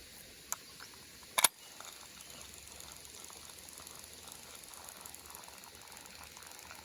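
Spinning fishing reel: a small click about half a second in, then a loud sharp snap about a second and a half in, like the bail closing after a cast, followed by faint steady cranking of the reel.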